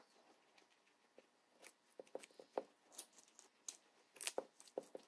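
Guinea pigs crunching and chewing pieces of raw carrot: a scatter of small crisp clicks, sparse at first and thicker from about a second and a half in.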